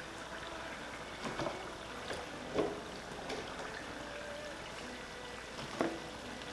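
Hot oil bubbling and sizzling steadily in an electric deep fryer with wontons frying in it, with a few light knocks of a ladle against the fryer as they are scooped out.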